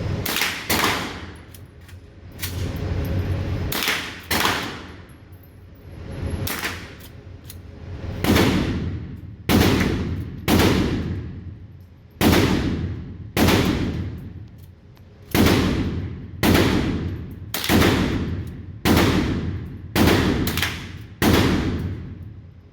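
Firearm shots in an indoor shooting range, each crack ringing off the walls: a string of about eighteen single shots, spaced irregularly at first and then coming about one a second.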